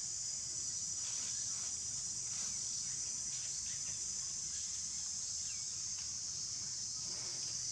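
Steady high-pitched drone of an insect chorus, unbroken throughout, with a few faint rustles.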